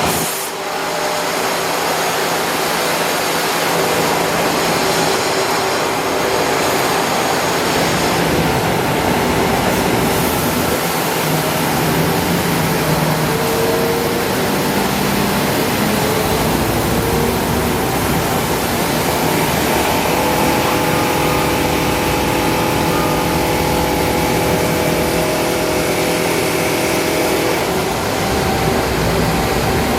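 Nakamura NTY3-100 CNC turret lathe running: a steady mechanical rush of spindle and drives, with whining tones that change pitch and switch on and off every few seconds as the machine works through its program.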